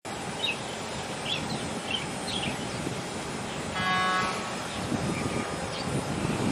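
Steady outdoor rumble and wind noise, with a few short high bird chirps in the first couple of seconds and a brief pitched call or tone about four seconds in.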